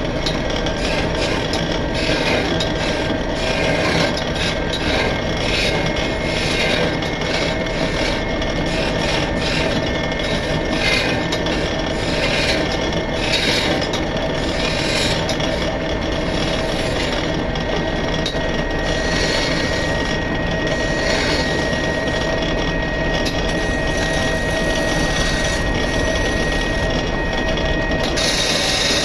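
Wood lathe running steadily while a turning chisel cuts and scrapes a spinning wooden cot leg, the scraping rising and falling unevenly over a constant motor hum.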